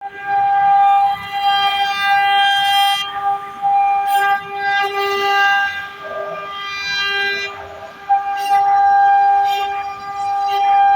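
CNC router spindle whining at a steady pitch while cutting wood, its tone swelling and easing as the cut load changes.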